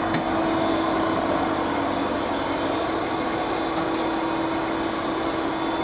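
Steady drone of a running industrial boiler room, with burner fans and machinery giving an even rush and a constant hum.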